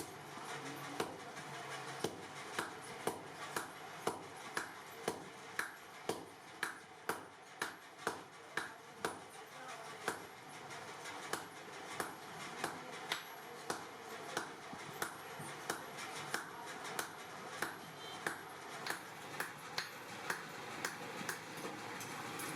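Hammer striking hot steel on an anvil in a steady rhythm, about two blows a second, over a steady background hiss.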